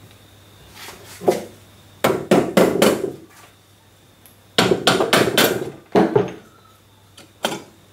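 Mallet striking the crankcase half of a Mercury 2.5-litre two-stroke V6 outboard powerhead to break it free from the block. There is a single blow, then two runs of quick blows, and one more blow near the end.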